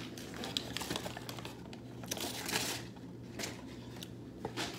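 Close rustling and crinkling of a food wrapper being handled, with scattered small clicks and taps. A longer crinkle comes about two seconds in.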